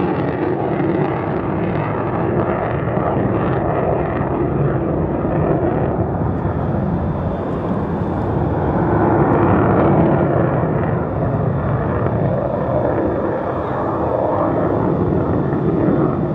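Loud jet noise from an F-35A Lightning II's single afterburning turbofan, a steady rumble that swells a little about ten seconds in.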